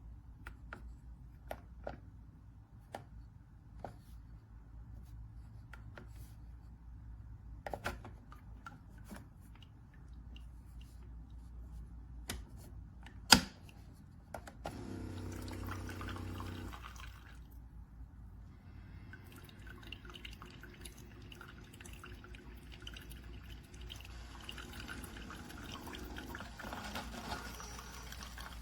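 Keurig K-Mini single-serve coffee maker in use. A series of small clicks and one loud click are followed by a brief pump hum of about two seconds. Coffee then trickles and drips into the cup through the second half.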